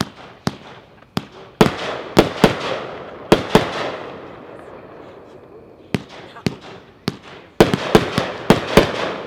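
A Class B Fireworks 25-shot cake, Special Color Peonies with Crackle Willow Finale, firing its shells. Sharp launch and burst reports come in quick clusters, about eight in the first four seconds and eight more from about six seconds in, each cluster trailing off in a lingering rumble.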